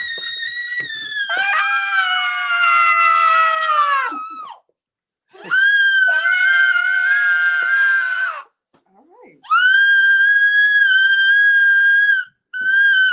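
A toddler and an adult screaming together in play: long, held, high-pitched screams, about four in a row with short breaks. A second, lower voice joins the high one in the first two screams. The screams are a game of yelling, not distress.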